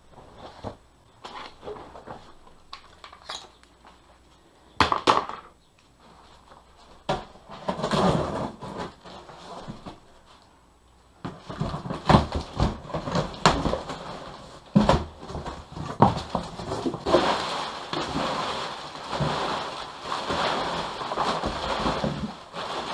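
A cardboard shipping box being opened by hand: scattered scrapes and clicks of cardboard and tape. About eleven seconds in, crumpled newspaper packing is rummaged through, a dense crackle and rustle of paper with sharp clicks.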